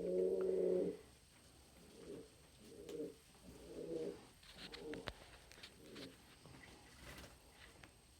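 Domestic pigeons cooing: one low coo held for about a second, then a run of shorter coos about once a second.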